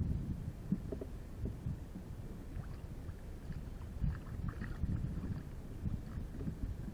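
Low wind rumble on the microphone with irregular soft thumps, and a hooked trout splashing at the surface beside the kayak about four seconds in.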